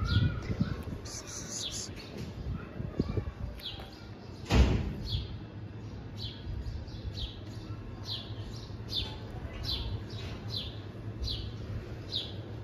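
A bird calling over and over, a short falling high chirp about one and a half times a second, with a single loud thump a little under five seconds in.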